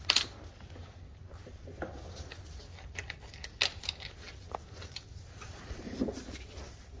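Scattered light metallic clinks and rattles from metal parts being handled under a car, over a low steady hum. The sharpest tap comes just at the start, and the others follow at irregular intervals.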